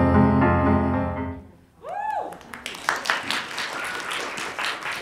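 The performance's instrumental backing music ends on a held final chord that fades out, then an audience member lets out a high whoop that rises and falls, and the audience applauds.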